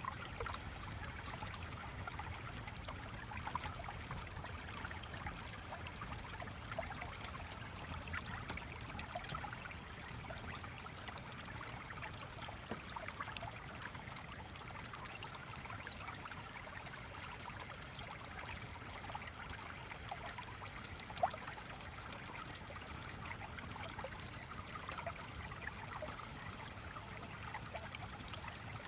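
Small stream flowing, a steady trickling and bubbling, with one sharp click about two-thirds of the way through.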